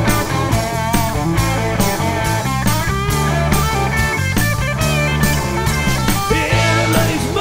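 Rock band instrumental break: an electric guitar plays a lead line of wavering, bent notes over bass guitar and a steady drum kit beat.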